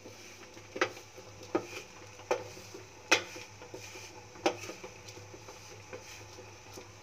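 A spoon stirring flattened rice (poha) on a stainless steel plate, with light clicks of the spoon against the steel, five of them spread over several seconds.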